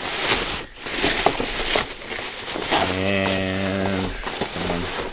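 Thin plastic bag rustling and crinkling as a boxed Funko Pop figure is pulled out of it. About three seconds in, a man's low drawn-out voice holds one steady note for just over a second, followed by a shorter one.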